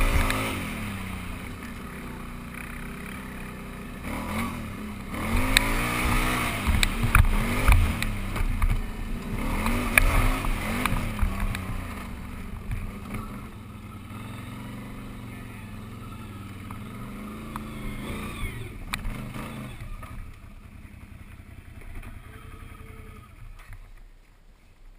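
Can-Am Renegade 800 ATV's V-twin engine, heard from on the machine, revving up and down again and again with the throttle, with occasional sharp knocks. It drops to a quieter, lower run near the end.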